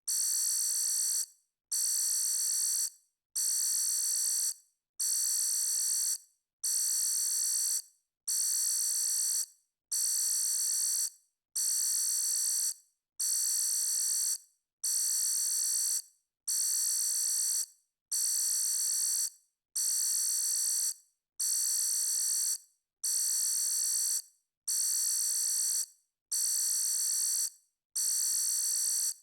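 An alarm sounding in a steady repeating pattern of high-pitched tones, each about a second and a half long with a short break between, about eighteen in all.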